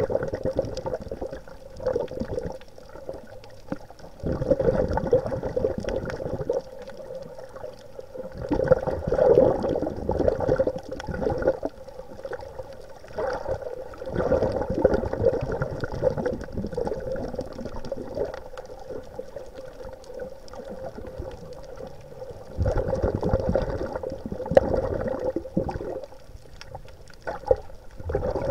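Water sloshing and gurgling around the camera in the water, in swells that come and go every few seconds, over a steady hum.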